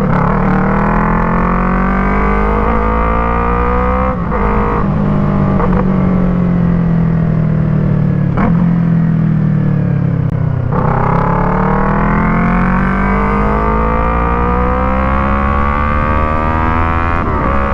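Yamaha MT-03's parallel-twin engine, breathing through an Arashi aftermarket exhaust with its dB killer fitted, under way on the road. The revs climb, drop sharply about four seconds in, climb again, ease off, then climb once more from about eleven seconds, as the bike accelerates and shifts gears.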